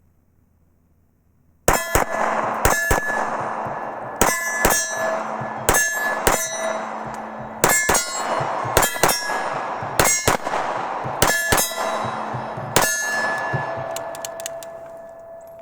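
Sig Sauer P320 9mm pistol fired in quick double taps, about nine pairs of shots, each followed by clanging metal that keeps ringing as a steady tone and fades out near the end.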